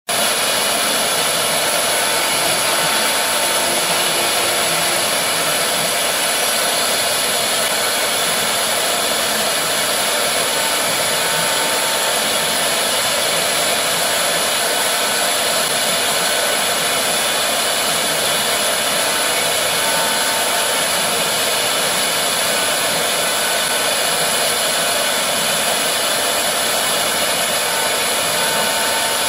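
4-axis CNC router's spindle running steadily with a high-pitched whine while its end mill carves a rotating block of epoxy tooling board held in the rotary axis, the cutting adding a constant hiss.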